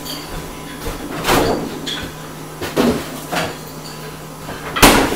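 Refrigerator door opened and things handled inside it: a few light knocks and clunks, then a loud thump near the end as the door is shut.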